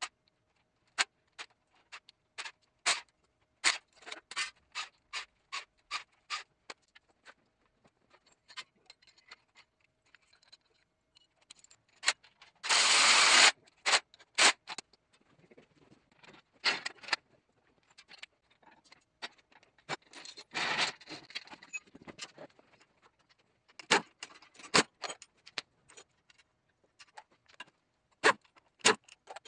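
Metal clinks and knocks of tools and bolts on an engine being stripped, in quick irregular clicks. A cordless drill runs in one loud burst of about a second roughly 13 seconds in, with a second noisy burst near 21 seconds.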